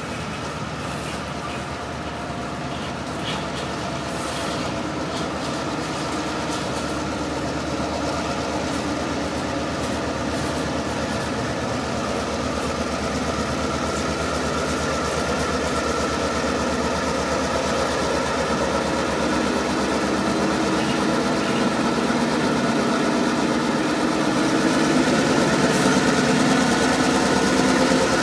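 Norfolk Southern EMD GP38-3 diesel locomotive running at low throttle as it rolls slowly toward the listener, its engine steadily growing louder, with a few faint wheel clicks early on.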